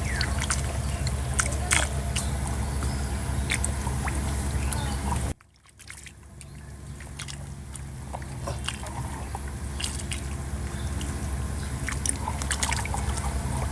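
Water sloshing and trickling over a steady low hum, with scattered clicks. The sound drops out abruptly about five seconds in, then fades back up.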